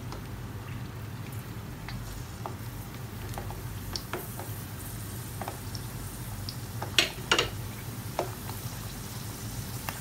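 Hollowed potato halves deep-frying in hot oil: a steady sizzle with scattered small crackles, and a couple of sharper pops about seven seconds in.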